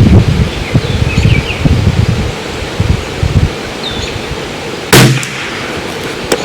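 Strong wind buffeting the microphone in gusts, then one sharp report about five seconds in: a single shot from a Bergara BMR bolt-action .22 rimfire rifle firing CCI standard-velocity ammunition. Faint bird chirps come through the wind.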